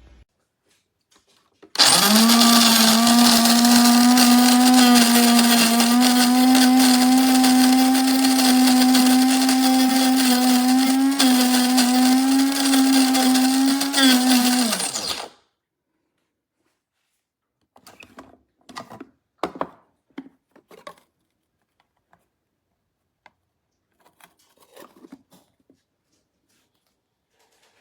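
Cuisinart DBM-8 electric burr coffee grinder's motor running loud and steady at one pitch for about thirteen seconds, then winding down and stopping. A few light knocks and clatters follow, some seconds later.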